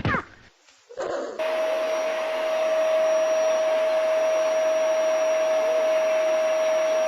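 A small electric motor running steadily, a whirring rush with a constant whine, starting about a second in.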